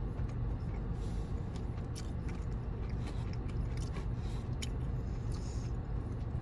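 Chewing, with small clicks and scrapes of wooden chopsticks picking rice from a foam takeout container, over a steady low hum inside a car.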